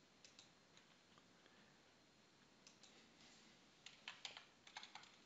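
Faint clicking of a computer mouse and keys, two clicks just after the start and a quick run of them in the second half, with near silence between.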